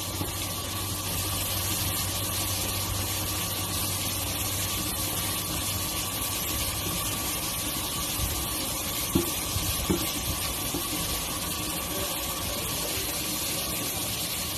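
Minced garlic and ginger sizzling steadily in hot oil in a nonstick frying pan, browning. A few light knocks of a wooden spatula against the pan come a little past halfway.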